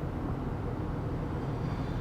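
Steady low rumble of a moving car heard from inside the cabin: engine and tyre noise while driving.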